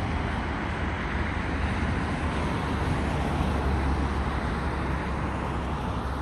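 Steady rushing roar of distant airliner jet engines on approach, mixed with deep wind rumble on the microphone, swelling a little around the middle.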